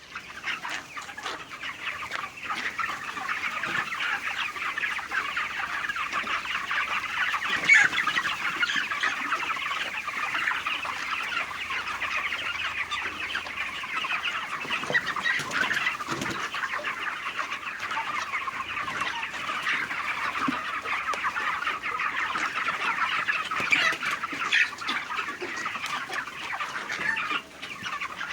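A large flock of chickens calling all at once: a dense, continuous chatter of overlapping clucks and cheeps.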